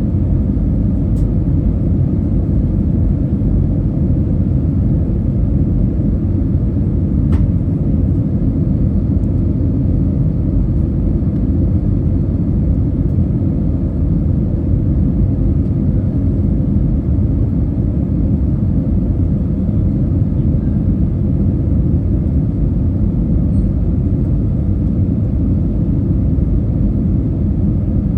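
Steady low rumble of airflow and engines inside an Airbus A320's passenger cabin on the approach to landing, with a couple of faint clicks.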